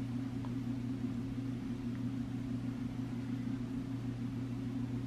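A steady low hum with a faint hiss, with no distinct sound of handling above it.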